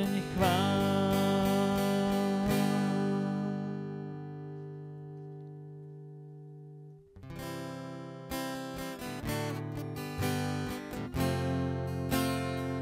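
Acoustic guitar music. A final chord rings out and slowly fades to almost nothing, then after a short gap, about seven seconds in, strummed chords start again as the next song's introduction.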